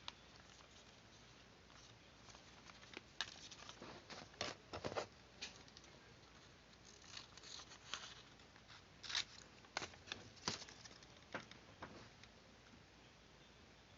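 Faint paper handling: scattered short rustles and clicks, bunched in two spells.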